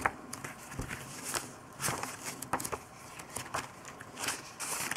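Paper pages of a spiral-bound calendar being turned by hand, one after another: a run of quick, irregularly spaced paper swishes and flaps.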